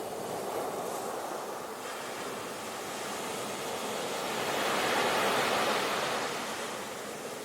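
Sea waves breaking and washing on the shore, a wave building to a loud crash of surf about five seconds in and then easing back.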